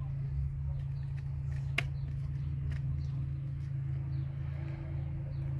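Two cats eating wet food from a plastic tray, with faint small clicks of chewing over a steady low hum. There is one sharper click about two seconds in.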